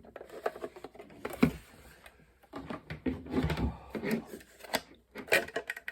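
Parts of a Macintosh external floppy drive being handled and worked loose during disassembly: scattered clicks, knocks and rubbing of plastic and metal, with a sharp knock about a second and a half in and a quick run of clicks near the end.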